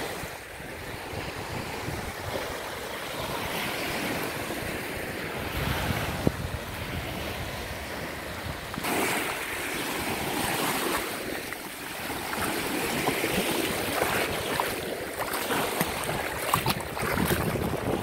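Small Caspian Sea waves breaking and washing onto a sandy shore, with wind buffeting the microphone.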